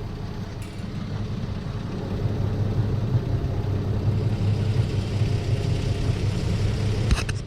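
2008 Infiniti G35's V6 engine and exhaust idling with a steady low hum and no rattle: the loose exhaust C-clamp has been replaced with a snug hose clamp. A few sharp clicks come near the end.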